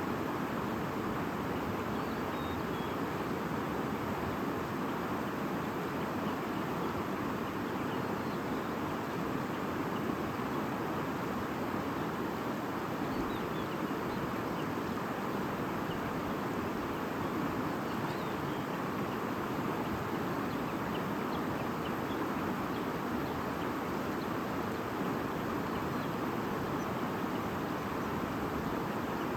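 Steady babbling of a stream, with a few faint, scattered bird chirps above the water.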